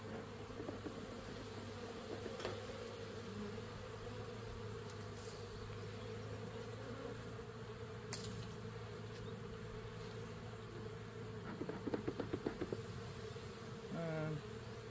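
Honeybees buzzing steadily around an open, heavily populated hive. A little past the middle comes a quick run of about eight short, loud pulses, and near the end a brief low pitched sound.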